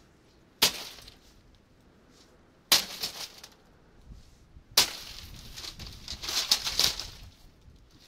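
Axe blows smashing the plastic housing of a Lasko 3733 box fan: three sharp hits about two seconds apart. The last is followed by a couple of seconds of crunching and rattling plastic.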